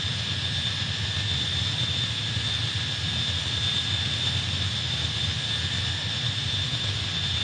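F-35's F135 jet engine running steadily on a test stand: an even rush of noise with a steady high whine over a low rumble.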